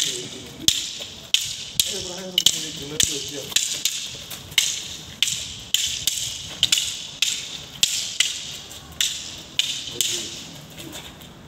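Long wooden sticks clacking against each other in sparring: sharp cracks about one to two a second in a steady rhythm.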